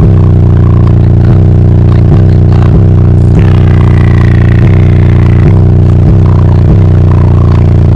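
Bass-heavy music with a steady beat about every 0.7 s, played very loud through a car's four 15-inch Ascendant Audio Mayhem subwoofers on CT Sounds 7000-watt amplifiers. The sound is overdriven and distorted, with rattling.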